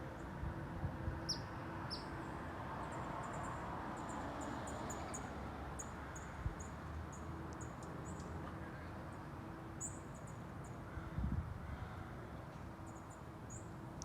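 Small bird chirping, many short high notes repeated at irregular intervals, over a steady low background rumble. A few low thumps sound near the start and about eleven seconds in.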